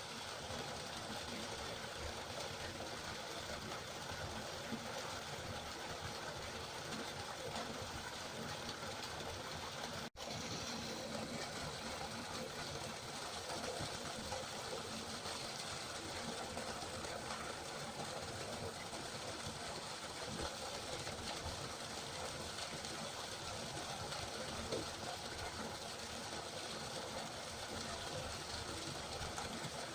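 River water flowing in a steady, even rush, with a momentary gap about ten seconds in.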